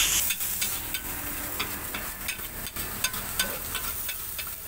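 Metal spatula scraping and clinking irregularly against a large metal wok as fried rice is stir-fried, over a soft sizzle.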